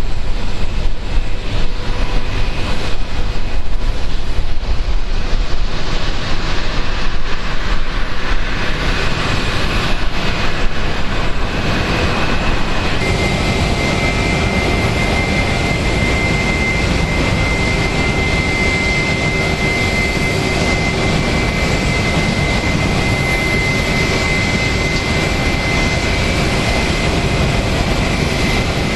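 Jet engines of a Boeing 737-800, its CFM56-7B turbofans, running. A loud, uneven roar for about the first twelve seconds, then from about thirteen seconds in a steadier roar with a high whine over it.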